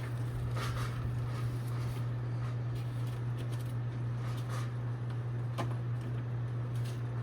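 Westinghouse ceiling fan coasting down after being switched off, with faint scattered clicks and ticks over a steady low hum.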